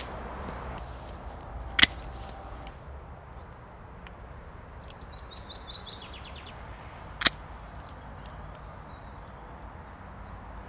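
Two sharp clicks, about two and seven seconds in, as a bicycle brake cable and lever are handled, over outdoor ambience. A bird sings a quick descending run of high chirps in the middle.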